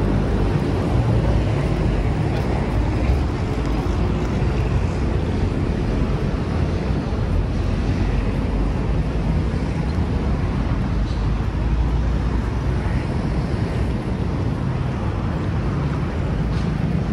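Steady, loud low rumble of vehicles passing close by.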